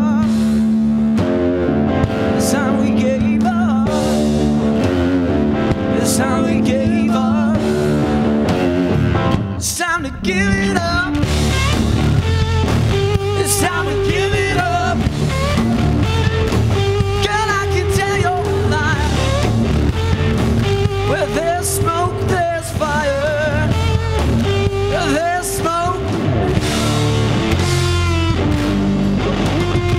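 Rock music with guitar, playing loudly and steadily, with a brief drop about ten seconds in.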